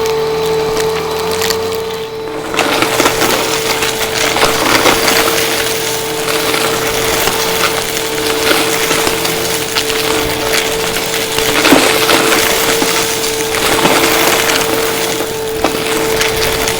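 Vacuum cleaner running with a steady motor whine, with dense crackling and rattling as debris is sucked up through it. The noise drops briefly about two seconds in, then carries on.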